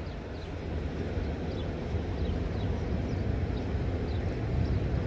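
Steady low rushing of the flowing river, with faint short high chirps now and then.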